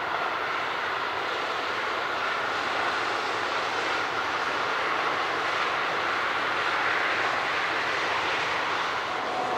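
Steady roar of a Boeing 777's jet engines on approach, with a faint high whine, growing slowly louder.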